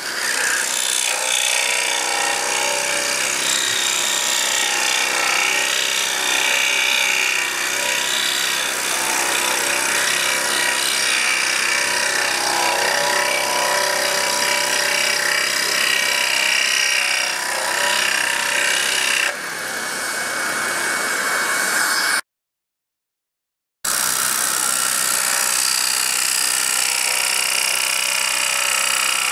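Pégas scroll saw running, its blade cutting through a thick block of wood with a steady buzzing rasp. About 19 seconds in the sound thins, and a few seconds later it cuts out completely for about a second and a half before the sawing resumes.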